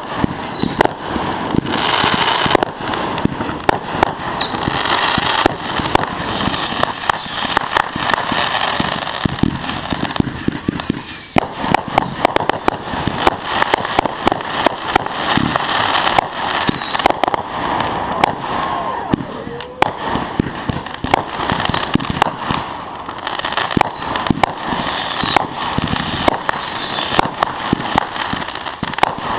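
A continuous fireworks barrage: dense, rapid crackling pops and bangs, with short whistling squeals cutting through every few seconds.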